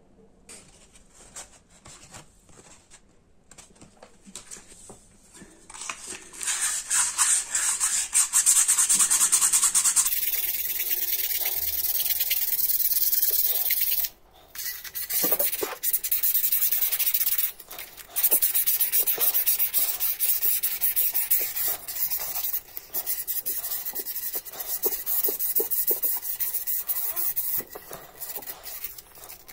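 Sandpaper rubbed by hand on a copper bowl to take off dark oxide. Faint scratching at first, then loud, fast rasping strokes from about six seconds in, with two short pauses.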